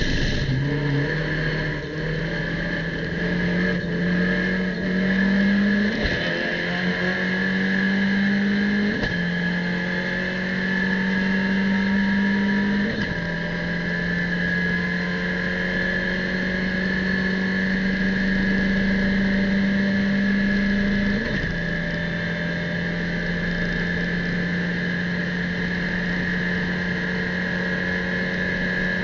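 Abarth race car's engine under full-throttle acceleration, heard from inside the cockpit. It climbs in pitch through the gears, with four upshifts about 6, 9, 13 and 21 seconds in, then pulls steadily at high speed in sixth gear.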